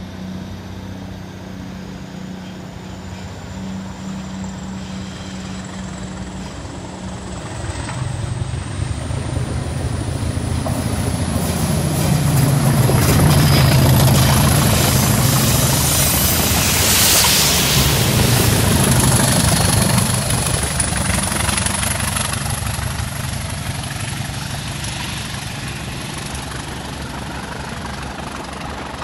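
Class 20 diesel locomotive 20305, its English Electric engine running under power, approaching, passing close about halfway through, then fading away down the line. A thin high whistle climbs in pitch as it nears.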